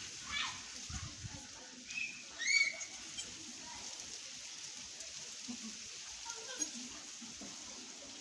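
A few short bird chirps, the loudest about two and a half seconds in, over a steady high hiss.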